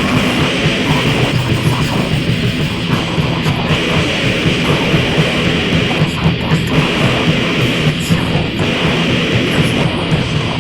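Death grind / noise grind music: heavily distorted, downtuned guitars over fast, pounding drums, loud and dense without a break.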